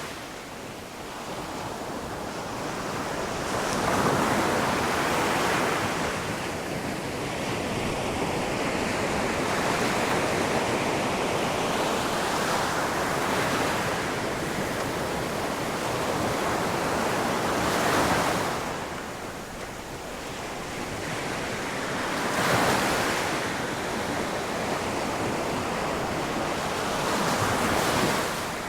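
Ocean surf crashing on a shore, a continuous wash of water with waves swelling and breaking every few seconds, several breaks louder than the rest.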